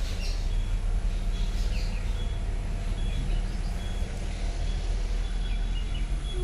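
Outdoor background: a steady low rumble, with a bird repeating a short high chirp about once a second.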